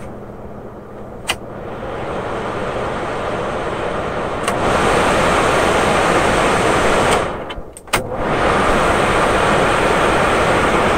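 Lakewood window fan running, its motor freshly lubricated, with a steady rush of air that steps louder as the speed control is clicked up: a click about a second in, another at about four and a half seconds, then full speed. A few more clicks near eight seconds bring a brief dip before the fan runs loud again.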